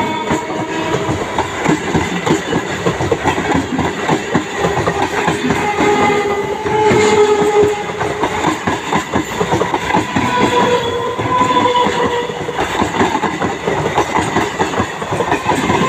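Passenger train carriages rolling past close by, their wheels clattering steadily over the rails, with a few wavering tones running through the rattle.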